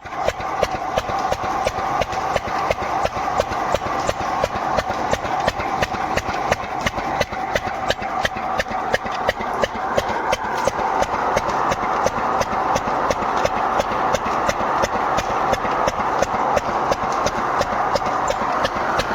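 A small engine running steadily with an even knocking beat of about five knocks a second over a continuous hum.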